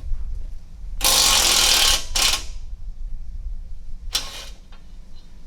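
Socket ratchet undoing the bolts of a strengthening bar under the vehicle: a fast run of ratchet clicks about a second long, a second short run right after, and another short run about four seconds in.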